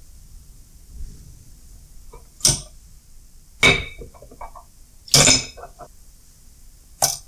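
Small steel ratchet parts (washers and other small pieces) dropped one at a time into a glass jar of cleaning fluid, each landing with a sharp clink against the glass. Four clinks, about a second and a half apart.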